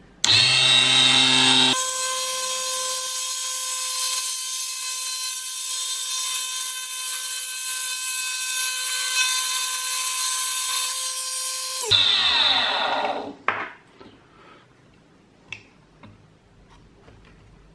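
A 24 V mini lathe's motor is switched on and spins a brass pin while a hand-held blade cuts it, giving a loud, steady, high-pitched whine for about ten seconds. It is then switched off and winds down with a falling whine, followed by a few faint light clicks.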